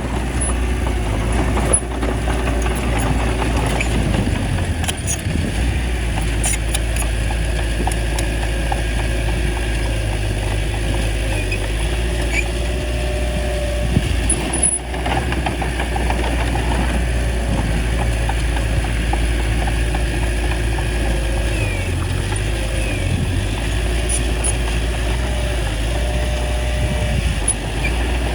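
Small bulldozer's diesel engine running steadily while it works, with occasional sharp metallic clanks.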